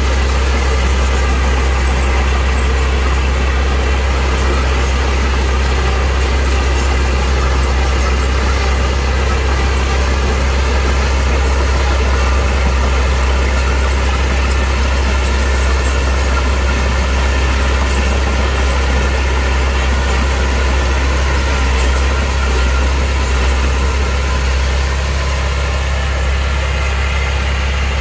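Engine of a heavy construction machine running steadily, a deep, even hum.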